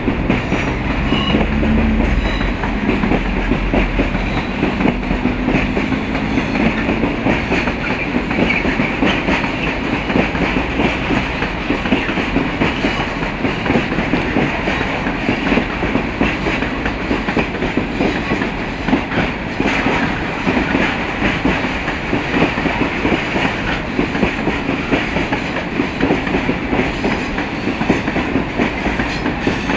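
A long freight train of loaded Eaos open coal wagons rolling past, the wheels clattering steadily over the rail joints. The low drone of the hauling M62 diesel locomotive's engine fades out over the first few seconds.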